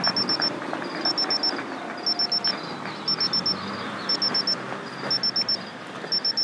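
Electronic alarm beeping in quick groups of four high-pitched beeps, about once a second, over a steady low background rumble.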